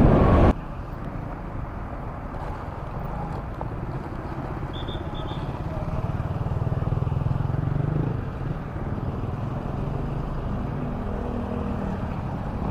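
Background music cuts off about half a second in, leaving a Honda Click scooter's engine and road noise while riding through traffic. The rumble swells around six seconds in and eases just after eight, with a few short high beeps near five seconds.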